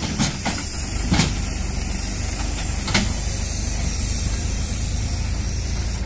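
Farm tractor's diesel engine running steadily under heavy load as it hauls two trailers loaded with sugarcane, with a few short knocks in the first three seconds.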